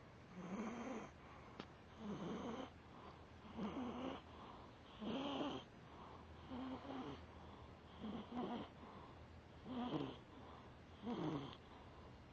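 Domestic cat snoring hard in deep sleep: about eight loud snores at an even breathing rhythm, roughly one every second and a half.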